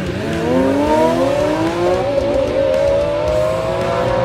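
Lamborghini Aventador SVJ's V12 under hard acceleration. Right after an upshift, the revs climb steadily for about two seconds, then hold high as the car pulls away.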